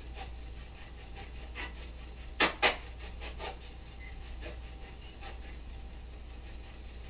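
Two sharp clicks a quarter of a second apart, about two and a half seconds in, over a steady low hum and a few faint ticks.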